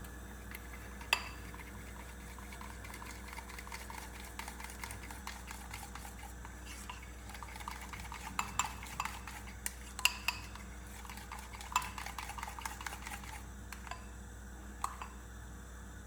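A utensil stirring thin batter in a bowl, with irregular light clinks against the bowl, a few sharper ones about a second in and around ten and twelve seconds in. The stirring works in a teaspoon of dry flour to thicken batter that was too runny.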